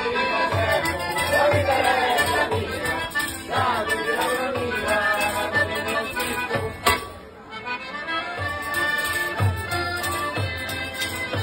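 Sicilian traditional folk music led by an accordion over a steady low beat, with voices singing during the first few seconds.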